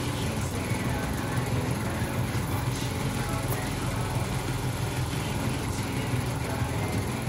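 Small portable air compressor running steadily with an even hum, pumping air through a hose into a garden tractor's front tire.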